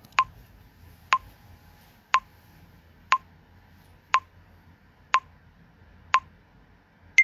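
TikTok recording countdown timer beeping once a second: seven short beeps at one pitch, then a higher beep right at the end as the count runs down.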